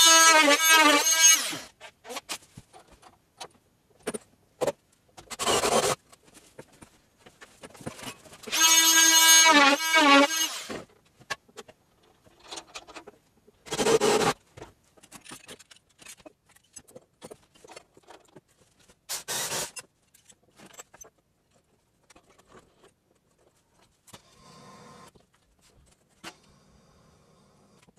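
Cordless power drill running in two bursts, the first about three seconds long and the second about two, each ending in a few short blips of the trigger. Short scraping or knocking noises from the work come in between.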